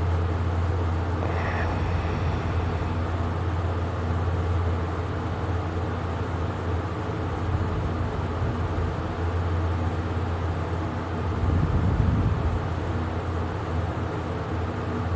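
Heavy snoring breaths from a sleeper over a steady low hum, with the loudest rough snore about twelve seconds in.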